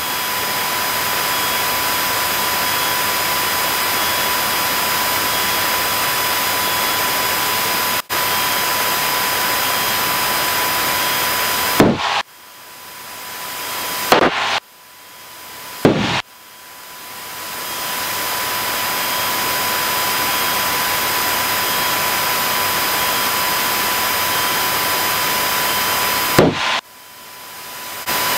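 Steady hiss of a light single-engine airplane's cabin noise on final approach, with faint steady whining tones in it. Four times, about halfway through, twice more soon after and near the end, a click cuts the hiss out suddenly and it fades back in over a second or two.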